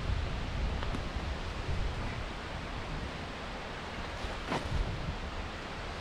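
Steady rushing of a monsoon waterfall, with low buffeting on the microphone and one sharp click about four and a half seconds in.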